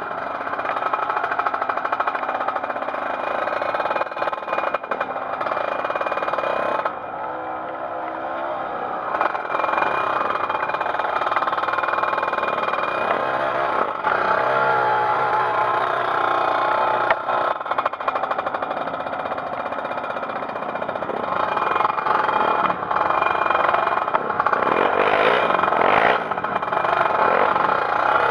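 Trail motorcycle engine running and revving, its pitch rising and falling as the throttle is worked.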